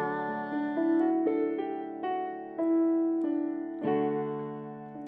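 Keyboard playing slow sustained chords, changing every second or so: the instrumental close of a slow worship song.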